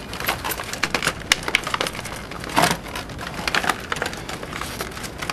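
Cardboard toy box and its plastic packaging being handled and pulled apart by hand: an irregular run of crinkling and crackling with sharp clicks, thickest near the middle.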